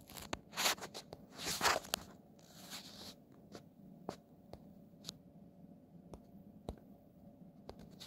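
Quiet room tone with scattered small clicks and a few short rustles, mostly in the first three seconds.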